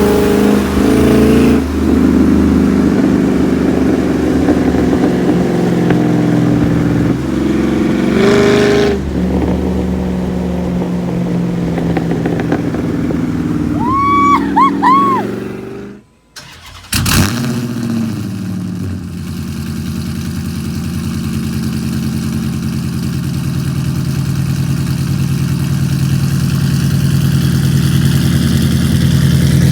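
Straight-piped Dodge Hemi V8 exhaust revving, with a few short high squeals about halfway through. After a brief break it settles into a steady loud idle.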